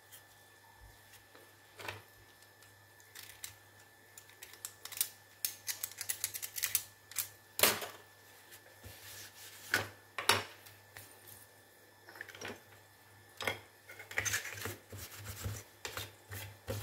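Light plastic clicks and rubbing as a wireless microphone's plastic handle is handled and wiped with a cloth on a workbench, with quick runs of taps in the middle and again near the end.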